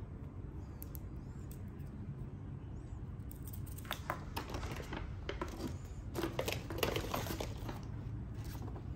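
Clear plastic MUJI gel pens clicking against each other and paper rustling as hands pick the pens up. The run of light clicks and rustling starts about four seconds in, over a steady low background hum.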